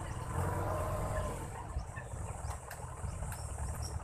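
Boom truck's engine idling with a low, steady rumble, insects trilling steadily in the background. A few light clicks in the second half.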